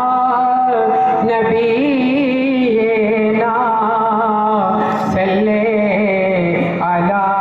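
A man sings a durood, a devotional salutation on the Prophet, into a microphone. The singing is amplified and made of long, ornamented held notes whose pitch winds up and down.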